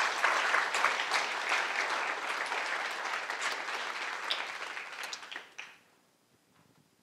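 Audience applause, many hands clapping, fading out about five to six seconds in.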